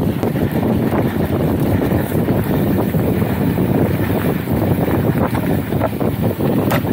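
Mountain bike tyres rolling fast over loose, sandy dirt, with wind blowing hard on the microphone, in a steady loud rush broken by frequent small clicks and knocks from the bike.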